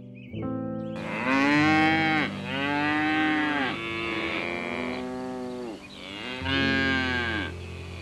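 Bison giving a series of long, drawn-out moo-like calls, each rising and then falling in pitch, with short gaps between them. Soft background music plays underneath.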